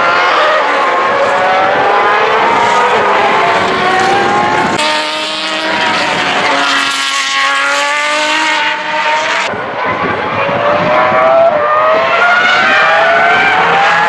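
Open-wheel single-seater racing car engines running at high revs as the cars pass on track, their pitch climbing again and again through upshifts.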